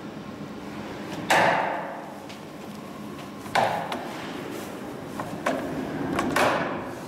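Clamps on a screen-printing mesh stretching machine being worked along the frame: a sharp clack about a second in, another near the middle, a few lighter clicks, and a loud one near the end, each fading off over a moment, over a steady low hum.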